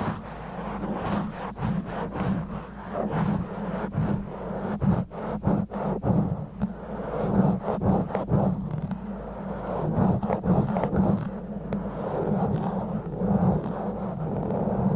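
Fingers scratching and rubbing rough and slow directly on a microphone, making a close, muffled scraping that swells and fades irregularly and is broken by many short, sharp scratch strokes.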